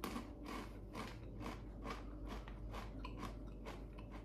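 A person chewing crunchy Takis rolled tortilla chips: a steady run of crisp crunches, about three a second.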